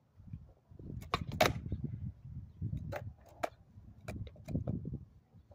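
Skateboard wheels rolling on concrete with a low rumble, broken by several sharp clacks of the board and wheels hitting the ground. The loudest clack comes about a second and a half in.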